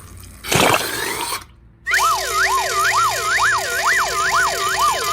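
A short noisy whoosh, then a wailing siren-like sound that sweeps up and down about twice a second.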